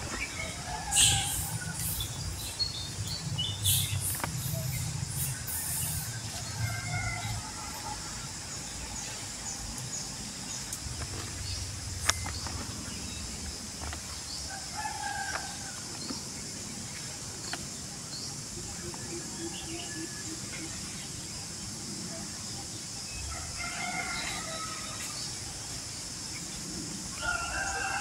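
Outdoor ambience with scattered short calls. A few sharp rustles and crackles come in the first several seconds, the loudest about a second in, and a single sharp click comes about twelve seconds in.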